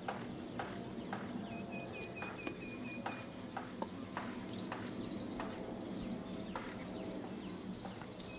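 Outdoor field ambience of insects chirping in short, high trills repeated every second or so, with a run of about eight even, quick notes about two seconds in.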